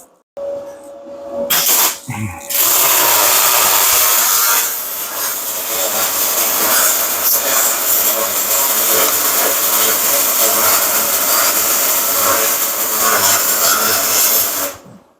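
Electric arc welding on a steel car frame: a steady crackling hiss starts about two and a half seconds in, holds for about twelve seconds with a brief dip, and stops shortly before the end.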